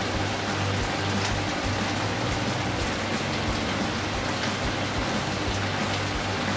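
Potatoes and peppers in a thin sauce sizzling and bubbling steadily in a nonstick wok over a gas flame, with scattered small pops.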